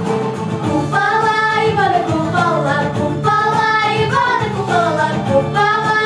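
Two girls singing a melody together into microphones over an instrumental accompaniment with a steady beat.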